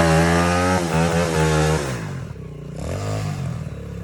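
140cc motorcycle engine revved up and held, dropping back about two seconds in, then blipped once more briefly before settling to idle. It is running on a newly replaced stator coil and is said to run much better now.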